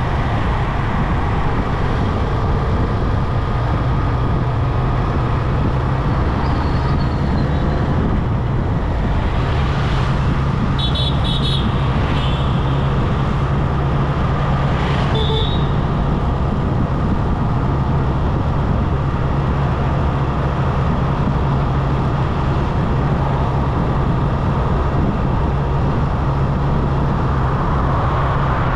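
Motorcycle running steadily on the road, its engine hum under a constant rush of road and wind noise. Vehicle horns give short beeps about a third of the way in and again a few seconds later.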